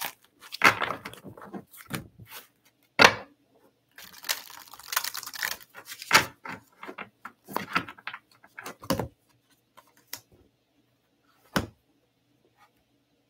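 A deck of tarot cards being shuffled and handled: bursts of card rustling and sliding, with several sharp taps of the deck. The handling thins out after about nine seconds, leaving one more tap near the end.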